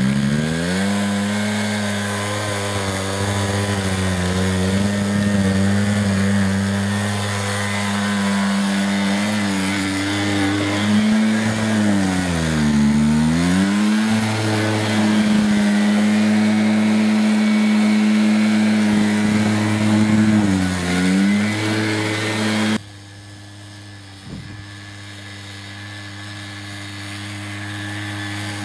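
Small engine of a Keeway ATV 50 quad running at a steady speed. Its pitch dips and recovers twice, once about halfway through. About three-quarters of the way through, the sound drops sharply in level, then slowly grows louder again.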